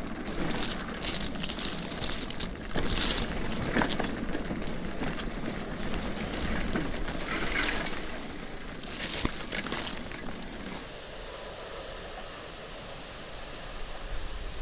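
Leaves and branches brushing and rustling against a bicycle and its rider on an overgrown dirt trail, with a few sharp knocks and rattles from bumps. About eleven seconds in this gives way to a quieter, steady outdoor hiss.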